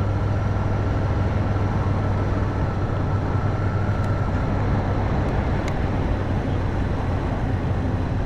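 Motorcycle engine running steadily at cruising speed, with wind and road noise rushing over it.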